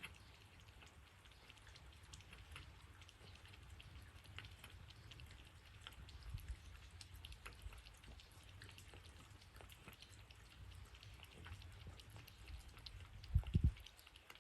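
Rain pattering and dripping steadily, with scattered drops ticking. Near the end come two short, louder low thumps.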